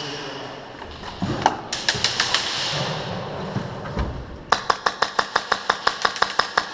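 Airsoft gunfire in an indoor arena: a few scattered shots, then from about halfway through a fast, even string of shots at roughly four to five a second.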